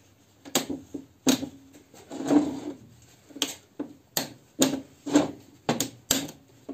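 Metal parts of a pit bike clutch basket clicking and knocking as they are pressed and turned by hand on a workbench: about ten sharp, irregular clicks, with a longer rattle about two seconds in.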